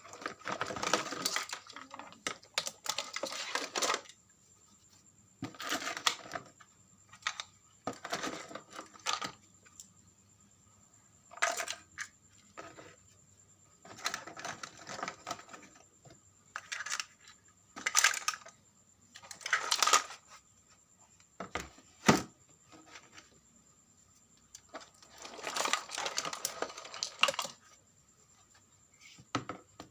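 Irregular clicking, scraping and rattling of small parts and tools being handled, in short bursts with gaps between, over a faint steady high-pitched tone.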